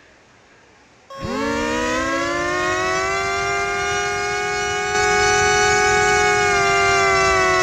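Siren: after a gap of about a second it starts abruptly, rises quickly in pitch and holds a long steady wail, falling slightly near the end.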